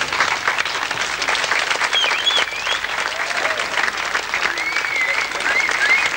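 A crowd applauding, with many hands clapping steadily and a few voices calling out over the clapping.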